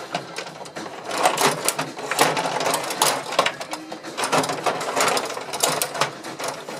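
Gretzky rod table hockey game in fast play: a busy, irregular clatter of the control rods being pushed and twisted, plastic players clacking against the puck and each other, and the puck knocking around the rink.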